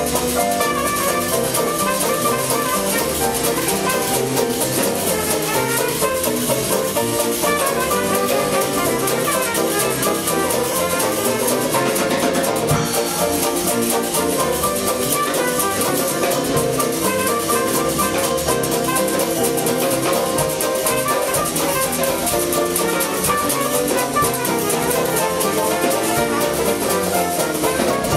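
Live Dixieland jazz band playing an up-tempo tune: a washboard keeping a steady scraping rhythm with a drum kit, and trumpet, trombone and banjo over it.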